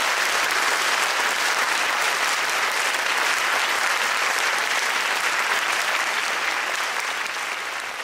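Crowd applauding: dense, steady clapping that begins to fade near the end, added as a sound effect.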